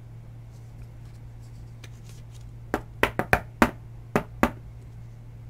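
A quick series of sharp clicks and taps, about eight in under two seconds starting about halfway through, from hands handling trading cards and a rigid plastic card holder. A low steady hum runs underneath.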